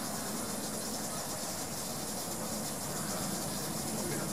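Steady hiss of escaping steam from a quarter-scale live-steam model of a W.G. Bagnall 0-4-0 saddle-tank contractor's locomotive.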